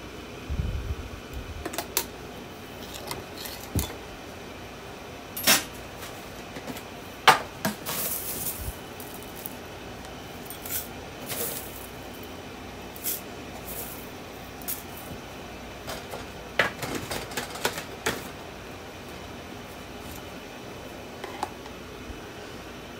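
Scattered clicks, taps and short crinkly rustles of cornflakes being dropped onto smoothie in a cut-glass bowl, with a low thump about a second in. The clicks come singly or in small clusters, the sharpest a little past the middle.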